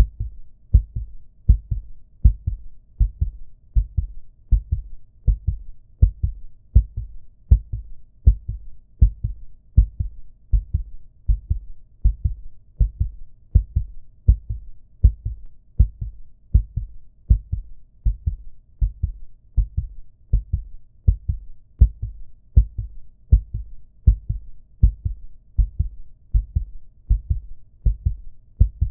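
Human heartbeat sound effect: a steady, even rhythm of low thumps, about one beat a second.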